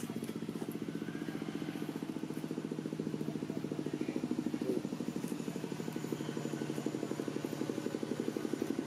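A small engine running steadily at an even idle, a fast regular pulsing.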